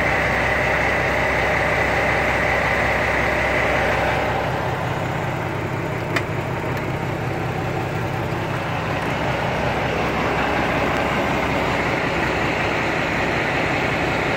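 Idling truck engine, a steady drone with a high whine over it; the sound grows duller about four seconds in, and there is a single sharp click about six seconds in.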